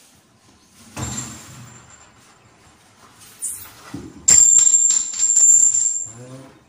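Cordless drill running in short bursts with a high steady motor whine: briefly about a second in, then louder for under two seconds from about four seconds in, with a few sharp clicks.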